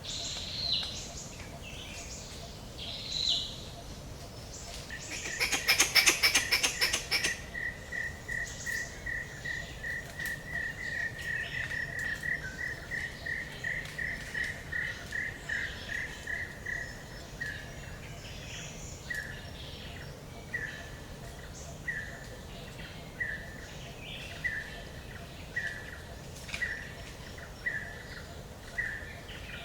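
Forest ambience with birds calling: two short high calls, then a loud, rapid rattling burst about six seconds in. After it comes a long series of short chirps at one pitch, quick at first and gradually slowing to about one a second.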